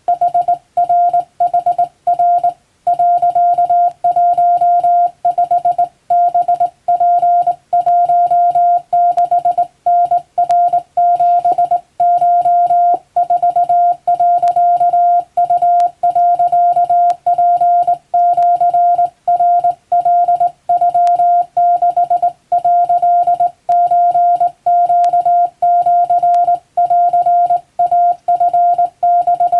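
Japanese wabun Morse code sent by hand: a single steady beep keyed on and off in dots and dashes, with short gaps between characters. It starts abruptly at the beginning.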